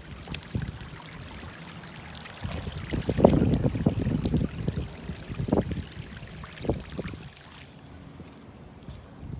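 Floodwater running over a gravel road, with a louder rumbling stretch from about two and a half to seven and a half seconds in that has a few sharp bumps.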